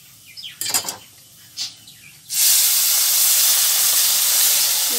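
After two brief clatters, about two seconds in, lukewarm water is poured onto roasted semolina in a hot non-stick kadhai. It sets off a sudden, loud, steady sizzling hiss as the water hits the hot pan.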